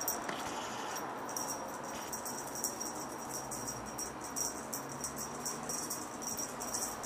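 Feather teaser wand being waved and swatted, giving a faint, irregular high rattling and ticking, over a steady high-pitched whine.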